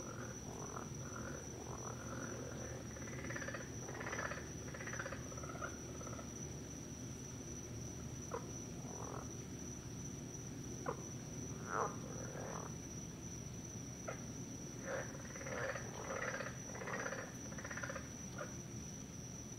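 Night chorus of frogs calling in irregular clusters of short notes, thickest for a few seconds near the start and again near the end, with a few single sharp notes between. Under them runs a steady high-pitched insect drone.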